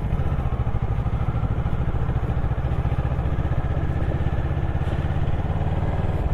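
Motorcycle engine running steadily, with an even, rapid low exhaust beat.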